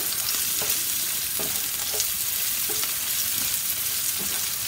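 Onions and mixed vegetables sizzling as they sauté in oil in a nonstick frying pan, stirred with a wooden spatula that scrapes the pan now and then.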